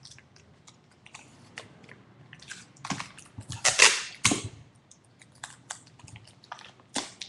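Clear sticky tape being pulled off the roll in crackly pulls and wrapped tightly around paper, with paper crinkling and tapping; the loudest pulls come about three and a half to four and a half seconds in.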